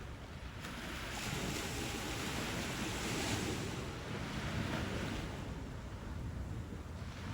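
Sea waves washing onto a shore: the surf hiss swells about a second in, peaks around three seconds, and ebbs away after about five, over a low rumble.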